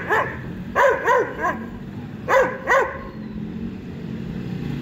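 A dog barking, about six barks in short runs of two or three, stopping about three seconds in, over a steady low hum of street traffic.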